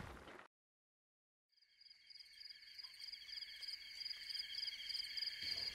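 Night chorus of crickets, a fast steady trill on several high pitches, fading in after about a second of silence and slowly growing louder.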